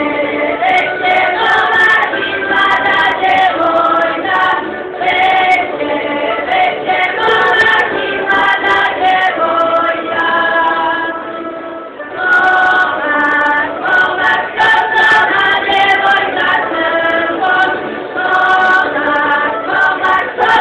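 Croatian folk song sung by a choir of costumed ensemble singers, mainly women's voices with some men's, singing in harmony. The phrases break off briefly about halfway through, then the singing resumes.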